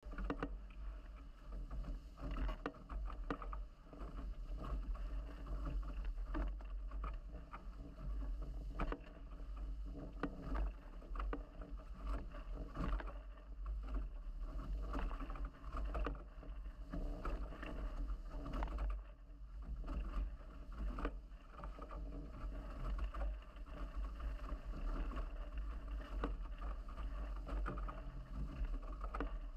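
Water rushing past and slapping against the hulls of a Nacra 17 catamaran sailing fast under spinnaker, with irregular splashes and a heavy, low wind rumble on the microphone.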